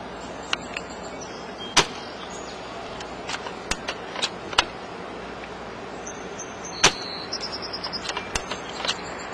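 Spring-powered bolt-action airsoft sniper rifle (Mauser SR Pro Tactical) fired twice, about five seconds apart, each shot a sharp snap. Lighter mechanical clicks come between and after the shots as the bolt is worked.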